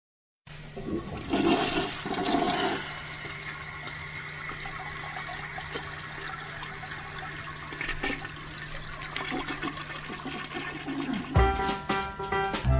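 A toilet flushing: water rushes loudest for the first couple of seconds, then keeps running steadily. About a second before the end, keyboard music starts.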